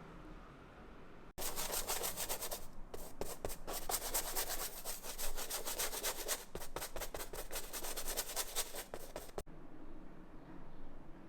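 Rapid back-and-forth rubbing strokes on a surface, dense and scratchy, starting abruptly about a second in and stopping abruptly near the end.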